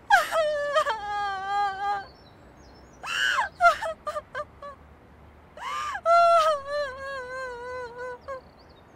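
A young woman crying aloud, sobbing in three long wailing bouts whose pitch wavers and falls, with short catches of breath between them.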